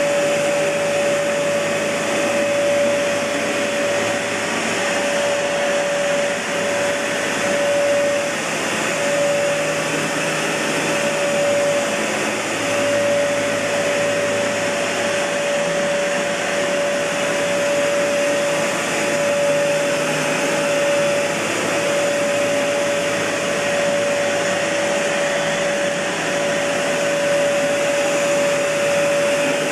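Kenmore Elite Cleva upright vacuum cleaner, with its Panasonic Inducer motor, running steadily: a constant rush of air with a steady whine over it.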